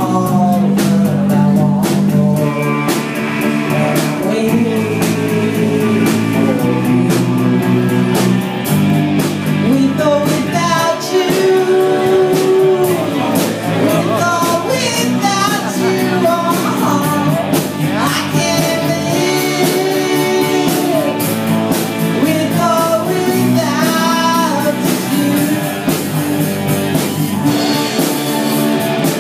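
Live rock band playing: guitar, bass guitar and drum kit, with a wavering melody line over the chords.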